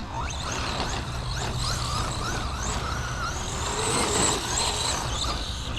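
Brushless motor and steel spur gear of a Team Associated Pro2 SC10 1/10 RC short course truck whining as the truck is driven, the whine rising and falling in pitch again and again with throttle, over a steady low rumble.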